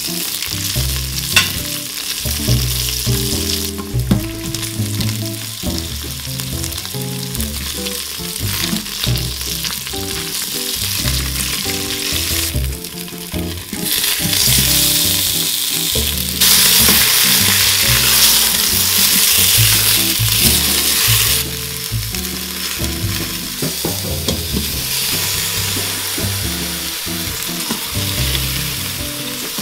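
Hot oil sizzling in a stainless steel Instant Pot inner pot as scallions, onion, garlic and tomato are sautéed and stirred with a spatula. The sizzle gets louder for several seconds about halfway through, when the wet tomato wedges go in.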